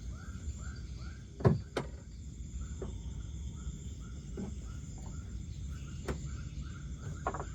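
Short chirps repeated about three times a second from a calling night creature, over a low steady rumble, with a few sharp clicks.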